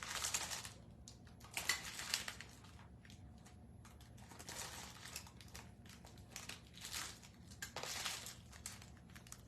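Crinkling and rustling of craft supplies being handled, in several short spells with pauses between.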